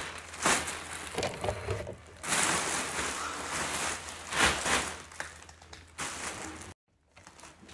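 Plastic poly bags of clothing crinkling and rustling as they are handled and piled, in irregular bursts of crackling. The sound cuts out to silence for a moment near the end.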